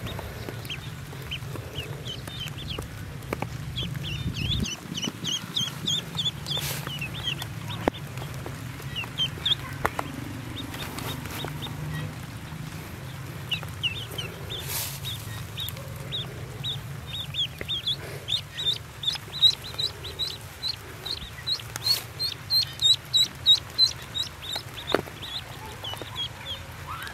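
A clutch of newly hatched ducklings peeping: many short, high, falling cheeps that come faster and louder in the second half.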